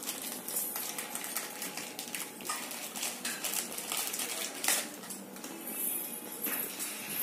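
Scattered clinks and clatter of metal dishes and utensils, short irregular knocks over a low background hum of activity.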